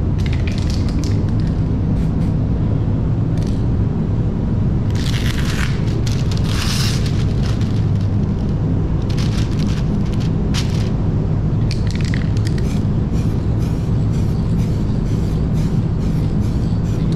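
Paint booth ventilation running with a steady low hum. In the later part come short hissing bursts from an aerosol can of spot-blending thinner sprayed over the edge of the fresh clear coat.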